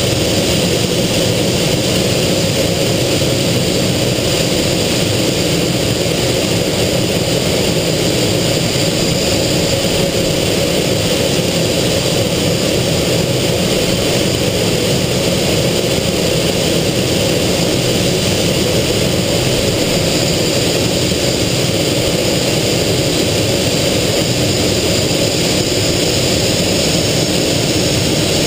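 Aero L-29 Delfín's single turbojet heard from inside the closed cockpit in flight: a steady, loud drone mixed with airflow noise, its high whine edging up in pitch near the end.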